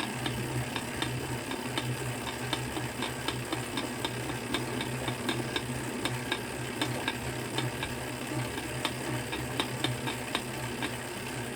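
Tacx bike trainer being pedalled, running with a steady low hum and a constant crackle of small clicks, several a second, from the trainer axle. This cracking noise could be due to a lack of grease on the spacer or cassette body in the axle.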